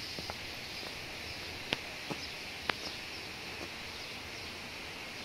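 Steady outdoor park ambience after rain: an even high hiss, with a few sharp clicks a little under two seconds in and again near the three-second mark.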